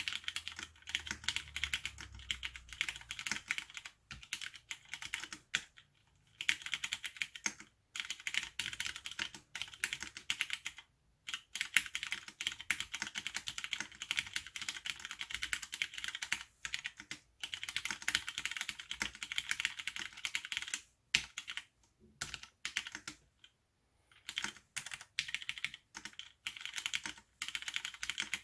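Continuous typing on an AR87 tenkeyless mechanical keyboard with Cherry MX Brown switches: a dense clatter of keystrokes in runs, broken by several brief pauses.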